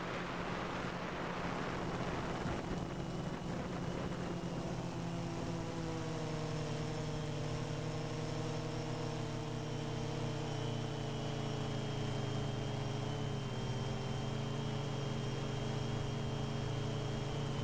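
DJI Phantom 2 quadcopter's electric motors and propellers humming steadily: a buzz of several tones that waver slightly in pitch as it flies, over a steady hiss. The tones come through more clearly from about five seconds in.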